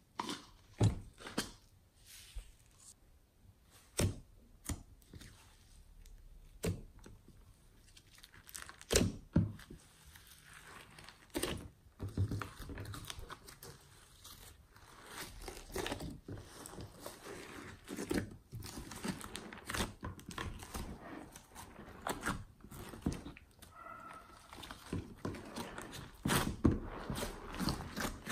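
Foam beads tipped from a plastic tub, with a few sharp clicks and knocks, then hands kneading and stretching a large mass of slime mixed with foam beads and glitter: dense crackling and wet squishing that grows louder toward the end.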